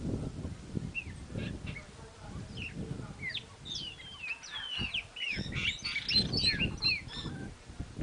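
Several small birds calling together in quick high chirps and down-slurred whistles, thickest in the second half, over a low rumbling noise.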